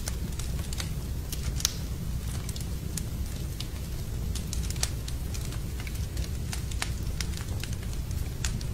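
Wood fire burning in a fireplace, crackling with many sharp, irregular pops over a steady low rumble.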